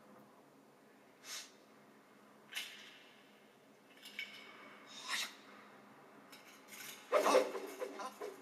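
Movie soundtrack heard off a television: three short, sharp whooshes a second or two apart, then a louder, longer burst of sound about seven seconds in.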